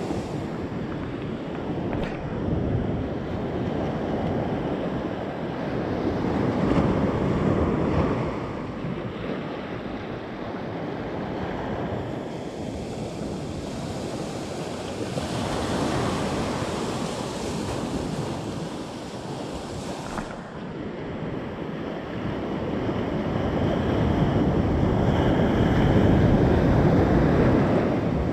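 Surf breaking and washing up a sandy beach, rising and falling in slow swells every several seconds, with wind on the microphone.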